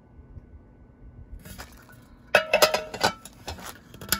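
Small metal bowls clinking and rattling against each other as they are handled. There are a few light taps, then a quick run of ringing clinks about halfway through, and one last clink near the end.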